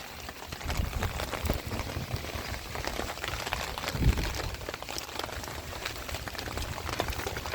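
Rain pattering with many small drips and splashes of water running into a yard drain, over a low rumble.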